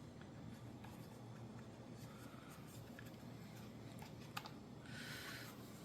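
Faint rubbing and small clicks as a rubber gasket is pressed by hand into the groove of a dishwasher's plastic air vent, with one sharper click near the end.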